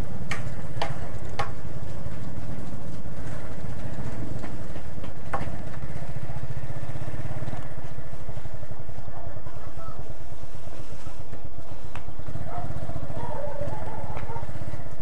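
Motorcycle engine running steadily under way, with a few short sharp clicks in the first second and a half.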